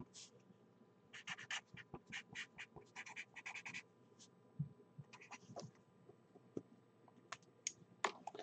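Faint pen strokes writing a name, short scratchy strokes in quick runs that thin out after the middle.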